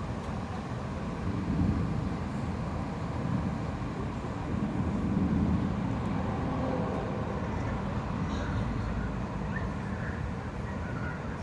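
Distant thunder rolling in a low, continuous rumble that swells about a second and a half in and again around five seconds.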